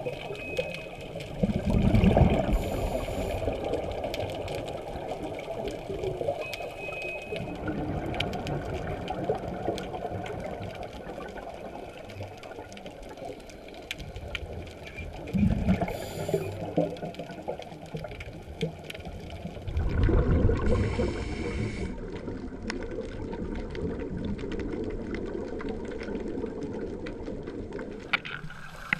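Underwater sound on a scuba dive: a steady crackle of fine clicks, broken three times by the bubbling rush of a diver's exhaled breath from the regulator, about two seconds in, about sixteen seconds in, and the longest at about twenty seconds.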